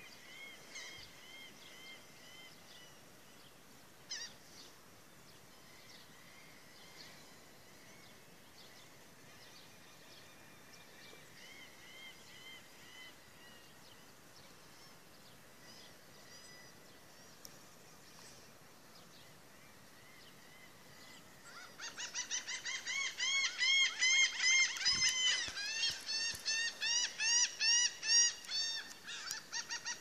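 Laughing gulls calling. Faint, scattered calls for most of the stretch, then, about two-thirds of the way through, a loud rapid series of rising-and-falling laughing notes, several a second.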